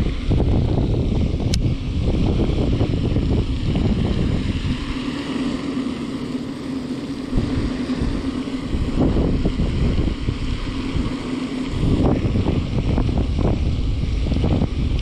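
Wind buffeting the camera microphone, a loud gusting rumble, with a single sharp click about a second and a half in.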